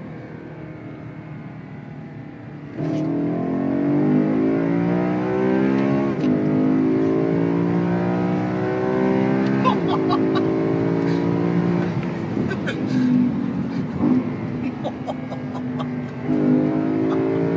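BMW M3's 4.0-litre V8 heard from inside the cabin, running steadily, then under hard acceleration about three seconds in with its pitch climbing. The pitch drops sharply at an upshift from second to third about six seconds in and climbs again, eases to a steadier lower note for a while, and rises once more near the end.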